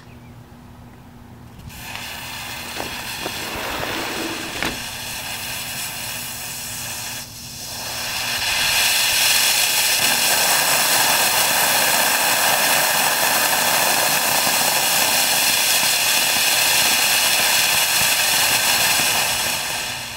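Sugar rocket motor with potassium nitrate, sugar and sulfur propellant, static-fired in a vise. A quieter hiss with a few sharp pops runs for about five seconds, which is the fuse burning. The motor then lights and builds within about a second to a loud, steady rushing hiss of exhaust that lasts about eleven seconds and tails off near the end.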